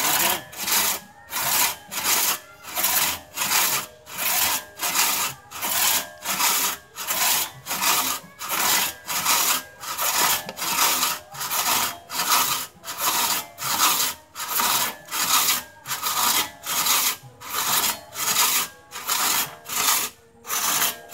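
Two-man crosscut saw being pulled back and forth through a freshly felled tree trunk, each stroke a rasp of the teeth in the wood. Steady rhythm of about two strokes a second.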